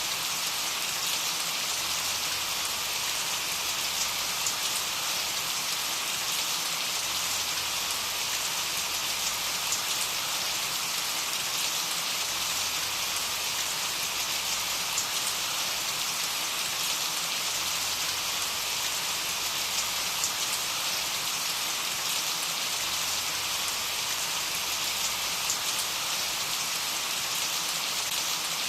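Steady rain falling, an even hiss full of fine drop ticks.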